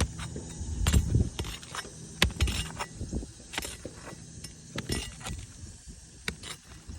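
Irregular clinks, knocks and scrapes of a metal tool working against asphalt shingles and their nails as a shingle is pried loose for removal.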